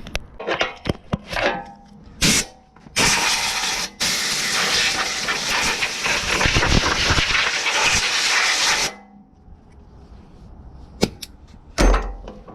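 A pressurised spray hissing: a short burst, then a long, steady blast of about six seconds with a brief break a second in. A few clicks and knocks come before it, and a low thump comes near the end.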